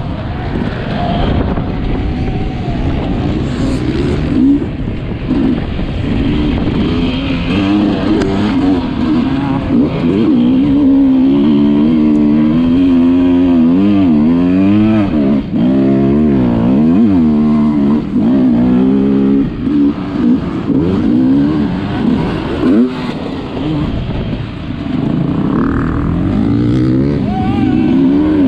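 Sherco 300 enduro motorcycle engine revving hard, its pitch swinging rapidly up and down as the throttle is opened and closed, with a few brief drops in level about two-thirds of the way through.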